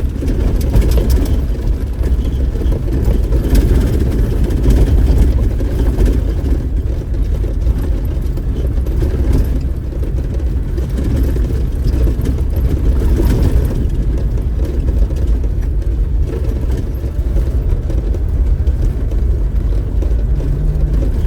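Off-road vehicle driving along a dirt trail: steady low engine and tyre rumble, with a few brief rattles and knocks.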